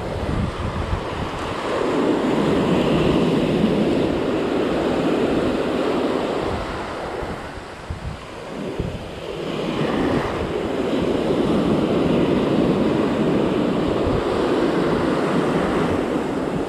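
Ocean surf breaking and washing up the sand in two long rushes, one from about two seconds in and the second from a little past the middle, with a dip between them. Wind buffets the microphone throughout.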